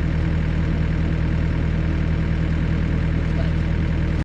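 Yanmar excavator's diesel engine idling steadily, with an even low hum. It breaks off for an instant at the very end.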